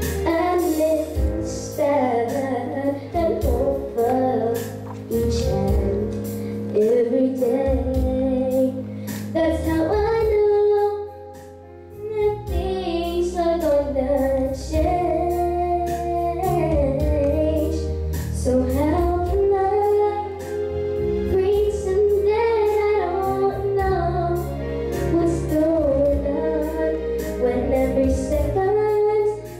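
A girl singing a song into a handheld microphone over a backing track with a steady bass and beat, her voice holding and sliding between long notes. Voice and music drop out briefly a little before the middle, then resume.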